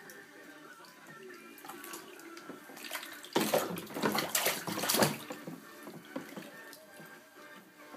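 Baby splashing bathwater with her hands in a plastic baby tub: a quick run of loud splashes from about three and a half seconds in, lasting under two seconds, with lighter sloshing around it.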